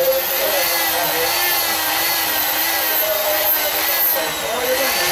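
Die grinder running at high speed with its burr in the bore of a small metal sleeve, grinding it out; a steady whine whose pitch wavers slightly as the burr is pressed against the metal.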